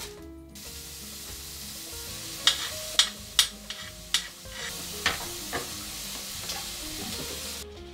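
Food sizzling steadily in a hot frying pan, with about six sharp knife chops on a chopping board in the middle of the stretch.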